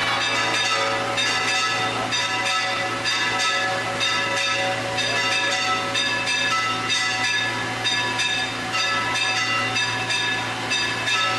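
Church bells pealing, many bells struck in quick overlapping succession with their tones ringing on, over a steady low hum.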